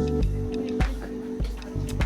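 Background music: plucked, guitar-like notes over a low bass line, with sharp note attacks at a steady beat.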